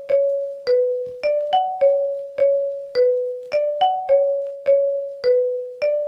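Ringtone melody in a marimba-like mallet tone: single struck notes, each ringing out and fading, about two to three a second, looping a short phrase of a few pitches without any beat underneath.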